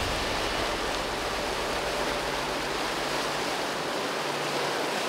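Fast, shallow mountain river rushing over rocks, a steady hiss of whitewater with no breaks.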